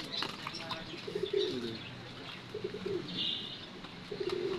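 Doves cooing: a low, gliding call repeated about four times, with a short burst of small-bird chirping about three seconds in.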